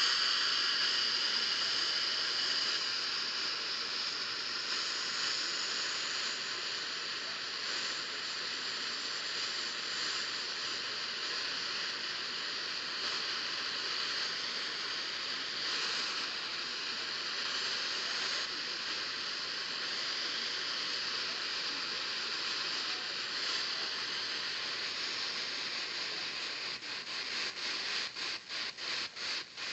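Steady hiss of static from a radio receiver tuned for weather alerts, with no programme coming through. Near the end the hiss starts breaking up into rapid, regular choppy pulses.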